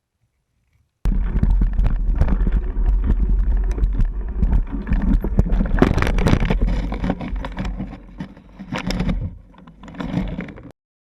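Mountain bike ridden over rough ground, heard through a GoPro action camera: a heavy wind rumble on the microphone with constant rattles and knocks from the bike. It starts abruptly about a second in, eases off in the last few seconds and cuts off suddenly.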